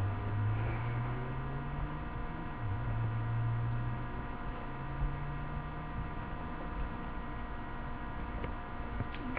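Steady electrical hum and whine. A louder low drone slowly rises in pitch, breaks once, and stops about six seconds in.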